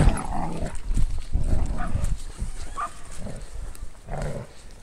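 Two young black Labradors making short, scattered vocalisations while on their leads, with a low rumble underneath.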